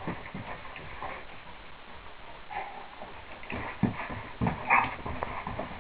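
A dog's paws scuffing and thumping on packed snow as it plays and pounces, a run of short irregular knocks, loudest a little under four seconds in and again around four and a half to five seconds in.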